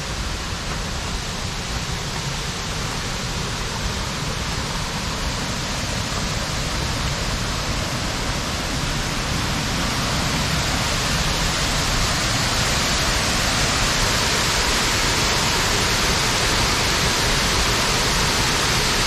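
Waterfall rushing: a steady roar of falling water that grows gradually louder toward the end.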